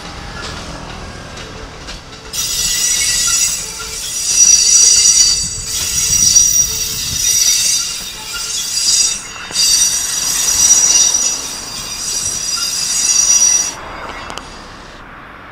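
Keikyu 600 series electric train rolling slowly, its steel wheels squealing. The squeal is loud and high-pitched and sets in about two seconds in over the low rumble of the running train. It dips twice and cuts off shortly before the end.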